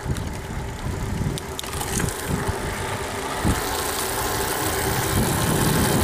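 Bafang BBSHD mid-drive e-bike motor running under load on a hill climb at pedal assist 5, a steady whine, with wind rumbling on the microphone as the bike moves.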